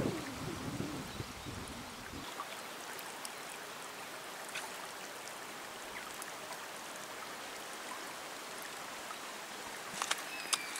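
River water rushing steadily over shallow riffles and rocks. Wind buffets the microphone for the first couple of seconds, and a few sharp clicks come near the end.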